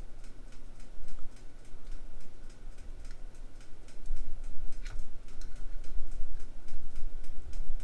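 Quick, even ticking, about four a second, with low bumps and rubbing from handling a socket and caliper while it is lined up for a measurement.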